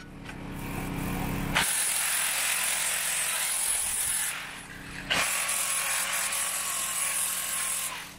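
Angle grinder grinding down a fresh weld on a steel implement frame. The grinding cuts in about a second and a half in, eases off briefly a little past four seconds, then bites again until just before the end.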